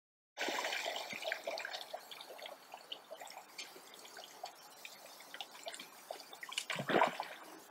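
Water dripping and trickling off a bull moose's head and muzzle as it feeds on aquatic plants in a pond, with many small drips. There is a louder splash about seven seconds in.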